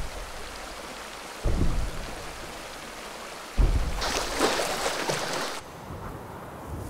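Shallow rocky stream running steadily, with a louder, brighter rush of splashing water from about four seconds in that lasts about a second and a half. Three short low thumps come near the start, before two seconds in and just before the rush.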